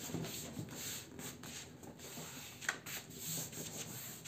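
Palms rubbing and pressing a glued cardboard panel flat onto black cardstock, a soft uneven scraping of skin on paper as the panel is pressed down so the glue takes hold. A brief tap sounds a little past halfway.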